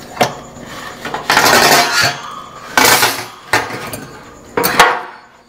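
A metal spatula scraping around the edges of a metal baking pan in several short strokes, loosening a baked focaccia, with sharp clinks of metal on metal as the pan is tipped over a wire cooling rack.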